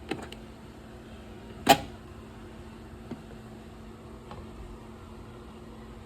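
Metal hand tools being handled in a tool case: a couple of light clicks, then one sharp knock about two seconds in, with fainter clicks later over a steady low hum.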